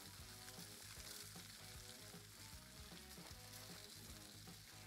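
Faint, steady sizzling of butter cooking inside foil-wrapped ears of corn on a hot gas flat-top griddle.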